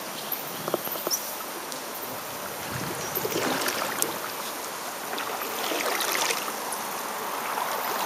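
Canoe being paddled on a calm river: water trickling and swishing off the paddle, swelling twice, with a few light knocks in the first second.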